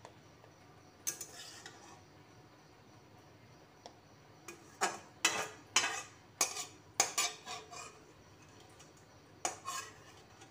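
Metal spatula scraping and knocking against a nearly empty metal kadai while the last onion and tomato bits are worked out of it. There is one knock about a second in, a quick run of sharp clinks about halfway through, and one more near the end.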